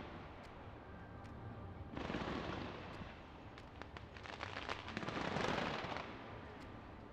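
Aerial fireworks going off: a continuous run of crackling pops and sharp reports, swelling louder about two seconds in and again, loudest, around five to six seconds.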